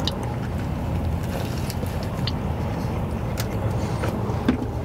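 Steady low rumble of a car cabin with the vehicle running, under the faint clicks and smacks of a man biting into and chewing a glazed yeasted donut.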